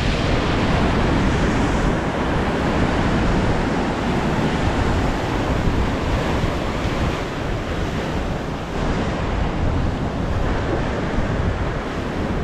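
Sea surf washing in and breaking along the shore, a steady rushing noise, with wind rumbling on the microphone.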